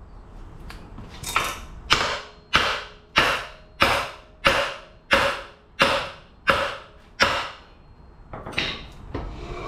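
Hammer blows on a seized front suspension joint, about ten strikes at a steady pace, each ringing briefly, to knock the old control arm free of the knuckle after it was soaked in penetrant. A few lighter knocks come near the start and near the end.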